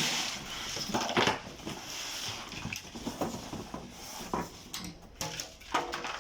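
Handling noise: a rustle in the first second, then scattered light clicks and knocks.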